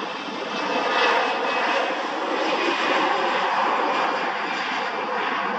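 Twin-engine jet airliner's turbofan engines running as it rolls along the runway: a loud, steady rushing noise with a faint steady hum running through it.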